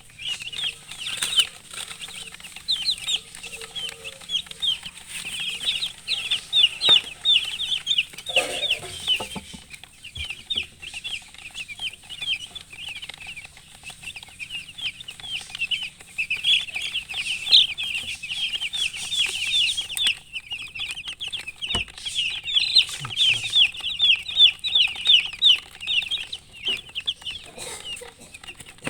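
Chicks chirping: a continuous stream of rapid, high, falling peeps from several birds at once, many per second and overlapping.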